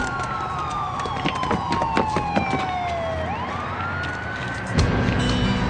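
Fire engine siren wailing: one slow fall in pitch, then a quicker rise back up, over a run of sharp clicks. A low steady rumble joins near the end.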